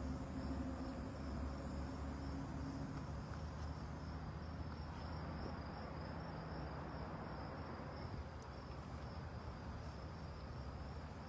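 Steady high-pitched insect chirring, with a low rumble underneath.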